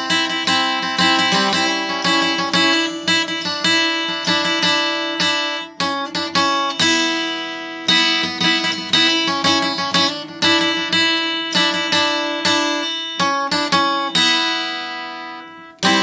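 Acoustic guitar improvisation: a run of plucked notes over a steady ringing low note. The notes die away about six seconds in and again near the end before the playing picks up.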